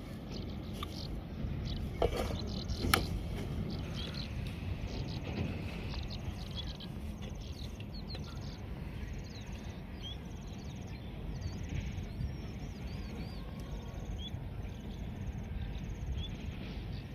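Outdoor ambience: a steady low rumble of background noise, with small birds chirping and trilling over and over. Two sharp knocks stand out about two and three seconds in.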